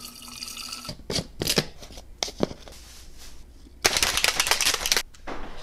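Water running from a tap, then a bottle being handled: several sharp clicks and knocks, and a louder rush of noise lasting about a second from about four seconds in.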